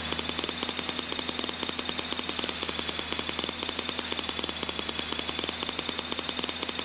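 Aerobatic plane's piston engine and propeller running at a steady speed during the pre-takeoff engine check, heard from the cockpit: a fast, even beat with a steady high whine over it.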